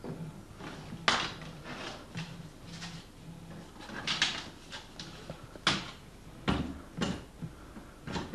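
A series of irregular light knocks and clicks, about six, over a low steady hum of room noise.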